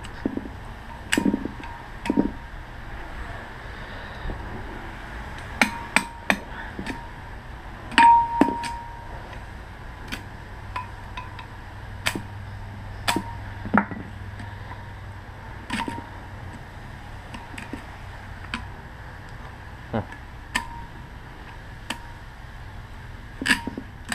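A steel tool clinking and knocking against the steel core of a large electric motor's stator as copper windings are pried out of its slots: irregular sharp metal strikes, some ringing briefly, the loudest about eight seconds in.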